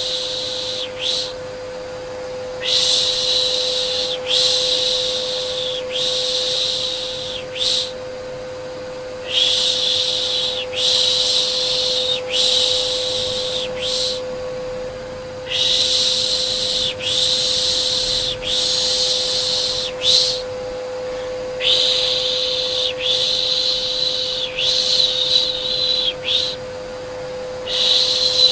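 Rhythmic 'shh, shh' shushing for soothing a baby, about one hiss a second in runs of four or five with short breaks, over the steady hum of a vacuum cleaner motor.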